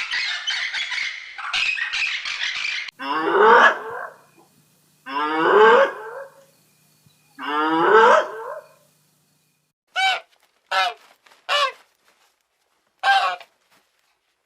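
Animal calls: a dense chattering of many birds, then, after a sudden change, three long pitched calls about two seconds apart, then four short calls.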